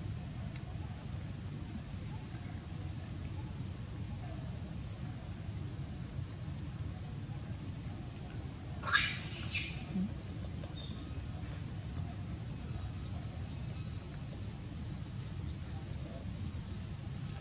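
Insects droning steadily in a high, even whine. About nine seconds in, a sudden loud burst of sound lasts less than a second.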